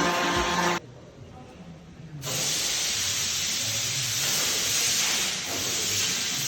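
Music ends just under a second in. After a short quieter gap, a steady, even hissing noise sets in and holds.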